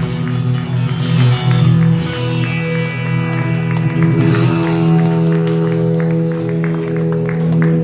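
Live band music: held chords with guitar, and short strummed or struck notes running through.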